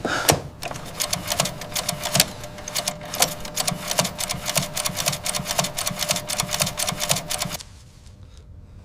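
Telegraph key clicking rapidly and continuously as Morse code is sent, stopping shortly before the end.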